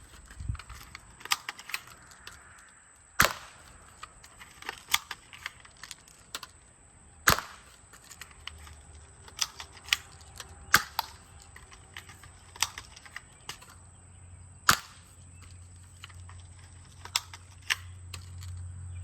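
Airsoft gun firing single shots a few seconds apart, each a sharp crack, with many lighter clicks and ticks between the shots.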